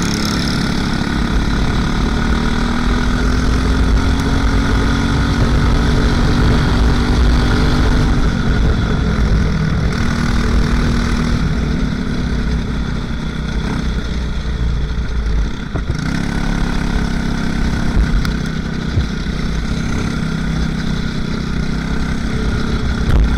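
Racing kart engine running at speed, close to the microphone, with wind buffeting it. The engine note eases off a little past halfway and picks up again about two-thirds of the way through.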